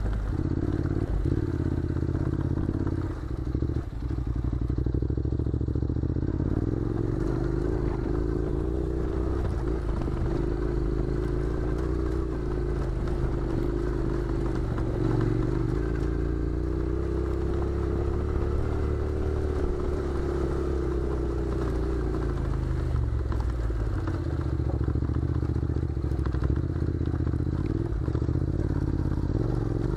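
Honda NC700's parallel-twin engine running at a low, fairly even speed as the motorcycle rides a rough gravel track, its pitch drifting gently up and down. Loose stones crunch and clatter under the tyres throughout.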